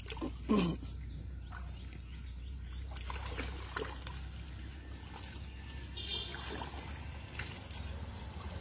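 Shallow muddy water being stirred by hands, with light splashing and trickling and a few faint knocks.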